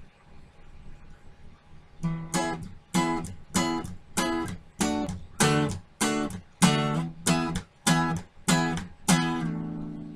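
Acoustic guitar strumming short chords in a steady reggae rhythm, starting about two seconds in, roughly one and a half strums a second; the last chord is left ringing near the end.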